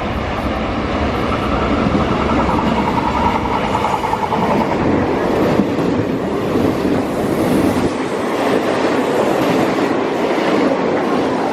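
A train passing close by: a loud, steady rumble of wheels on rails, with a whine in its first few seconds.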